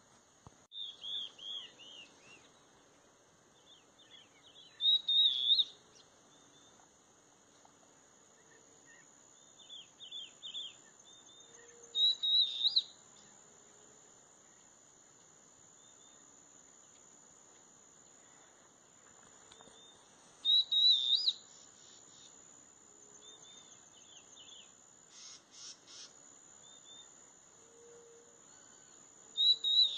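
A bird calling in short bursts of quick high notes, the loudest bursts coming about every eight seconds with softer calls between them, over a steady high-pitched whine.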